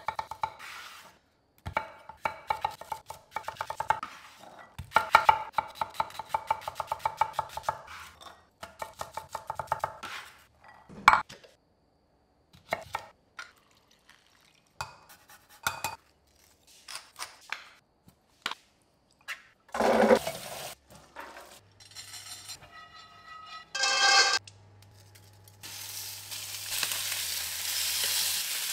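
A run of kitchen prep sounds: a knife chopping quickly on a wooden board, stirring in a bowl and utensils knocking, then salmon fillets sizzling in a hot cast-iron pan for the last few seconds.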